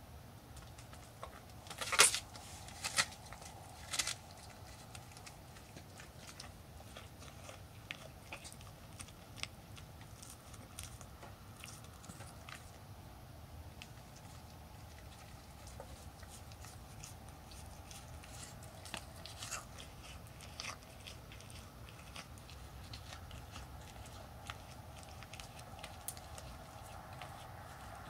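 A doe deer eating feed off the ground, crunching and chewing. Three sharp crunches come about a second apart near the start, then smaller scattered crunches.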